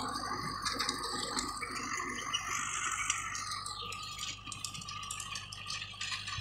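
Mahindra 415 diesel tractor running with its rotavator churning soil: a steady rattling clatter over a faint low engine hum, growing a little fainter after about four seconds.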